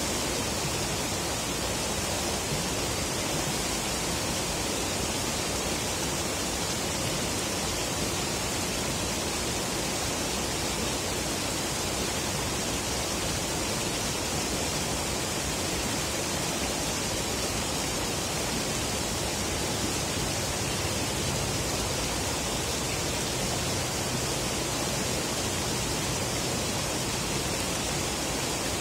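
Steady rushing of flowing river water, an even hiss with no breaks, with a faint low hum joining about two-thirds of the way through.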